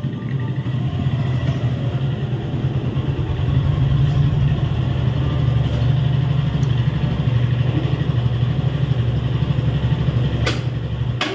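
Motorcycle engine running steadily at low revs while the bike is brought in and parked, then switched off, the sound cutting off suddenly with a click right at the end.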